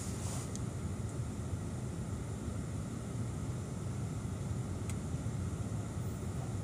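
Steady low rumble of a car engine idling, heard from inside the cabin with the driver's window open. A few light clicks come at the start and one sharp click about five seconds in.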